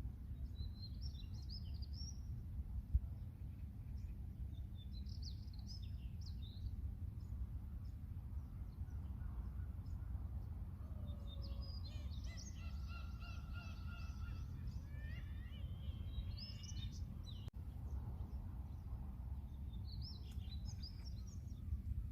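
Birds calling over a steady low rumble. Short high chirps come a few times, and a longer string of calls with several pitches at once runs through the middle, some of them falling in pitch.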